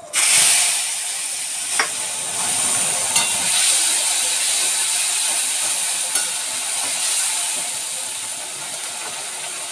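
Wet ground spice paste poured into hot oil in a kadai, sizzling at once with a loud, steady hiss that eases slightly toward the end, with a few faint clicks over it.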